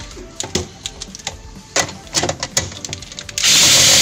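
Several sharp clicks and knocks as the plastic freezer frame is handled. About three and a half seconds in, a cordless drill fitted with a flexible shaft extension and a 10 mm bit starts running steadily to undo a bolt.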